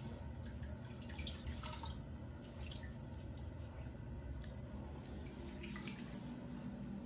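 Bath water in a plastic baby tub lapping and trickling, with small drips and splashes; a hand stirs the water near the end.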